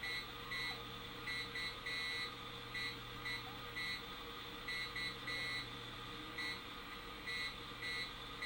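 Morse code dots and dashes from keyed negative ion generators, heard through an AM radio tuned between stations: irregular short and long high-pitched beeps over steady radio static and a low hum.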